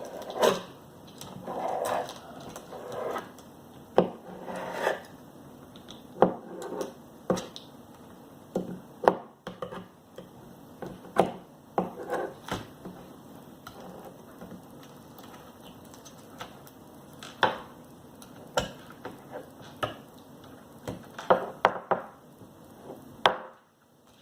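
Irregular knocks and taps on a hard work surface, with some rubbing or scraping in the first few seconds, as excess slime is worked off homemade slime cookies.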